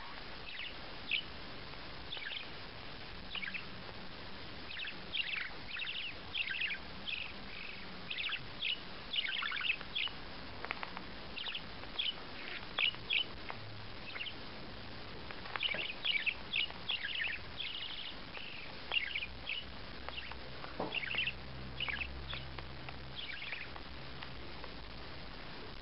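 A small bird chirping over and over: short, high chirps that sweep downward, coming in quick runs with brief pauses between them.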